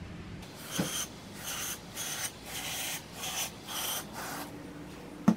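About seven short hissing sprays in quick succession, each under half a second, directed at a bare crankshaft as it is cleaned. A single sharp knock near the end.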